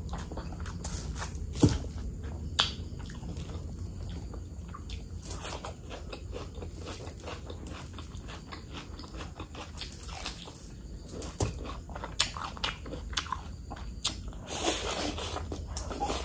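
Close-miked chewing and biting of mutton curry and rice, eaten by hand, with many small wet mouth clicks. Two sharp clicks come about two seconds in, and a quick run of clicks follows near the end.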